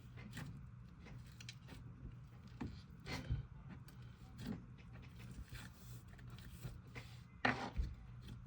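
Slime being squished, stretched and poked by hand, giving irregular squelches and clicks, the loudest about seven and a half seconds in, over a steady low hum.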